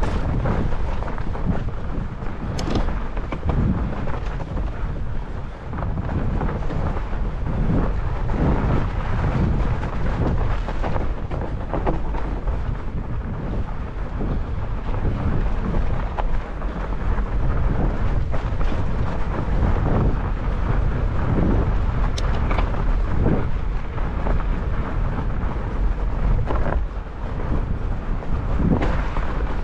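Salsa Bear Grease fat bike ridden fast over a snowy trail: a steady low rumble of wind buffeting the microphone and the wide tyres rolling over snow, broken by frequent knocks and rattles as the bike hits bumps, with a sharp click about two and a half seconds in and another near twenty-two seconds.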